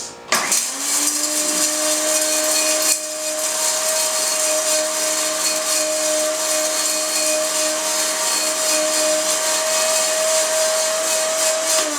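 Innomix Surya mixer grinder running its small jar at full speed, grinding turmeric into powder. The motor starts about half a second in and runs with a steady whine. No rattle of bigger pieces can be heard, the sign that the turmeric is ground fine and done.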